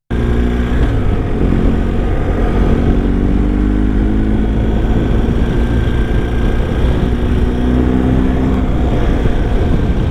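BMW R1250 GS boxer-twin motorcycle engine running under way, its note rising and falling gently with the throttle, under heavy wind rush on the microphone.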